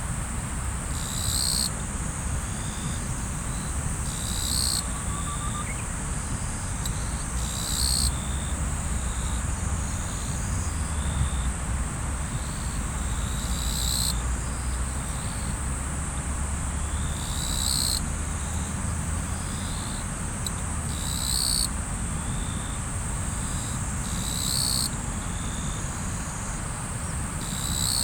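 Riverside ambience: a steady rush of flowing water under a continuous high insect trill, with a louder, high-pitched insect call rising out of it every few seconds.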